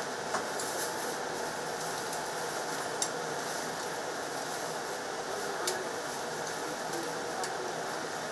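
Metal tongs clicking sharply against the wire-mesh conveyor belt of a jerky roasting oven, a handful of times, as roasted pork jerky sheets are lifted off. Under the clicks runs the oven's steady mechanical noise.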